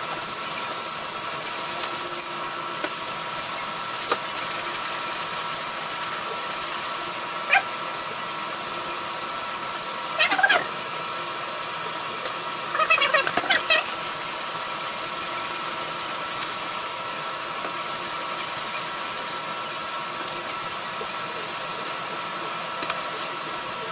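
Hand sanding of a truck's painted body panel with sandpaper: a steady scratchy rubbing hiss that stops briefly now and then. A few short high squeaks come through in the middle, over a steady faint whine.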